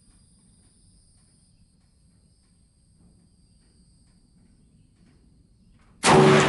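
Faint steady high insect calls, then about six seconds in a single loud PTR-91 rifle shot in .308 (7.62x51) with a sharp report and a long echoing decay.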